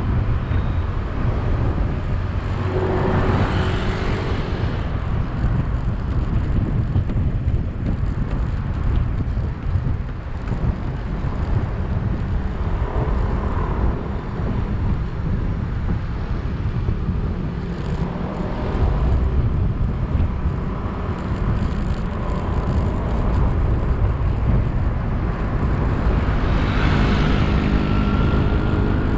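City traffic heard from a moving vehicle: a steady low rumble of engine and tyres on the road, with other vehicles passing, swelling about three seconds in and again near the end.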